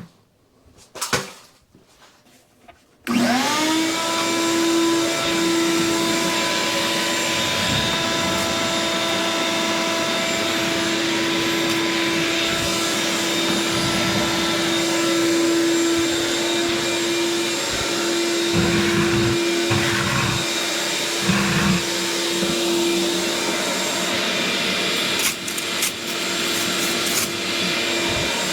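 A couple of sharp clicks, then a vacuum switched on about three seconds in. Its motor whines up to speed and runs steadily, sucking soot from a wood furnace's stovepipe. A few low thumps from the pipe come about two-thirds of the way through.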